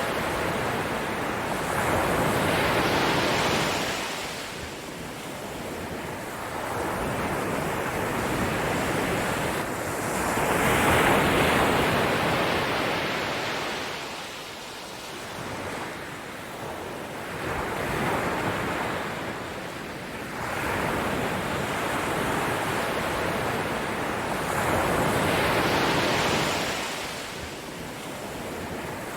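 Ocean waves breaking on a shore, the surf swelling and fading in slow surges every several seconds.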